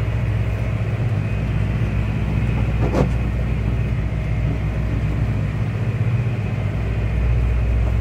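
John Deere 6120 tractor's diesel engine running steadily under mowing load, a constant low drone. A single brief click comes about three seconds in.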